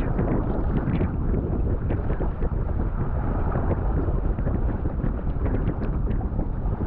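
Wind buffeting the microphone as a steady low rumble, with water rushing and splashing along the hull of a sail-driven kayak under way.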